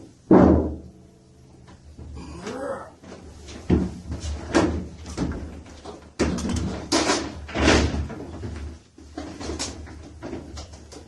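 An uneven series of knocks and bangs, about a dozen, the loudest just after the start and again around seven to eight seconds in. A short wavering call comes about two seconds in.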